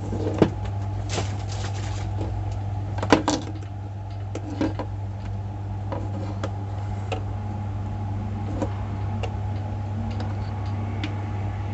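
Scattered small clicks and knocks from handling the electric kettle's parts, with a louder cluster about three seconds in, over a steady low hum.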